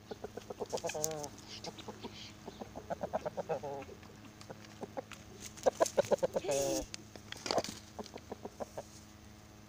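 A chicken clucking in quick runs, three times over, each run ending in a longer drawn-out call, followed by a few scattered single clucks near the end.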